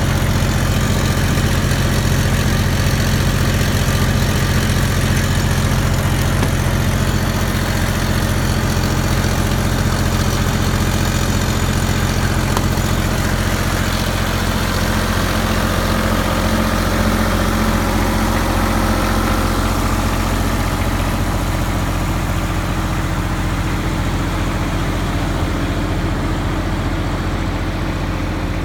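Diesel engine of a Multiquip LT12 light tower generator running steadily at constant speed, a low, even hum.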